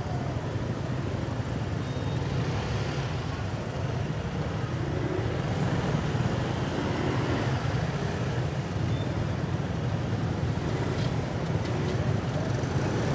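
Dense motor scooter traffic crawling along a crowded street: a steady low rumble of many small engines idling and moving slowly, with a wash of street noise over it.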